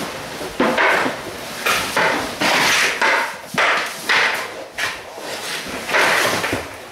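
Hockey stick and pucks knocking and scraping on synthetic ice panels: a series of irregular sharp knocks and short scrapes.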